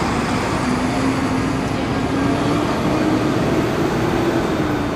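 Busy city street traffic with a heavy vehicle's engine droning, rising slowly in pitch as it pulls away and easing off near the end.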